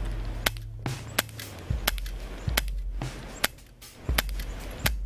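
Airsoft pistol firing a quick, uneven string of about ten sharp cracks, two or three a second, over a low steady rumble.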